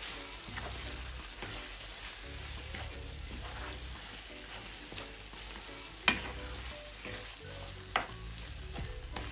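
Wooden spoon stirring minced beef, prawns and melting mozzarella in a frying pan, with a gentle sizzle and soft scraping. Two sharp knocks stand out, about six and eight seconds in.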